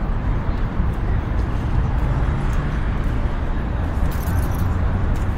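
Steady outdoor city ambience heard while walking: a continuous low rumble with a faint murmur of voices in the background.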